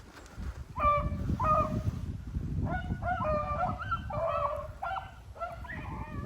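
A pack of rabbit dogs baying while running a rabbit: short, honking calls that begin about a second in, then several dogs sounding together and overlapping.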